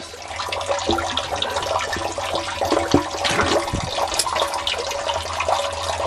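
Water sloshing and gushing in a sump basin as a submersible sump pump is pulled loose from its discharge pipe, with a few knocks as the pump and fittings are handled.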